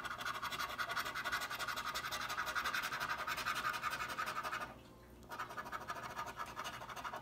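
A coin scratching the latex coating off a paper scratch-off lottery ticket in rapid, even strokes, with a short pause about five seconds in before the scraping resumes.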